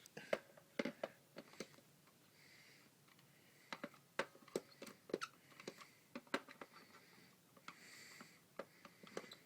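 Faint scattered clicks and light taps, irregular, with a lull about two seconds in and two soft hissing sounds, one a little after two seconds and one near the end.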